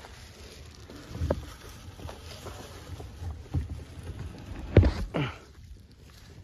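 Dry leaf nesting litter rustling, with a few dull knocks, as a hand reaches under a sitting hen in a plastic nest box to take her eggs. The loudest knock comes a little under five seconds in.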